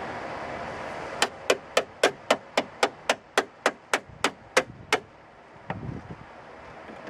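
A hammer striking metal about fifteen times in a quick even series, roughly four blows a second, then one lighter knock: hammering at a stuck screw in a pickup's door handle that will not come out.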